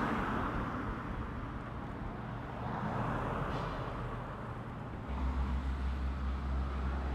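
Car traffic on a city street, passing cars swelling and fading. About five seconds in, a steady low rumble takes over.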